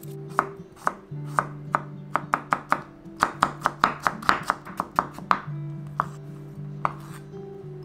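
Chef's knife slicing a carrot into thin strips on a wooden cutting board: a run of sharp knocks of the blade meeting the board, about three or four a second at its quickest in the middle, then thinning out near the end. Background music plays underneath.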